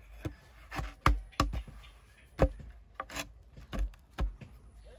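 Loose wooden planks knocked and scraped into place against the mouth of a clay oven: a series of irregular sharp wooden knocks with rubbing between them.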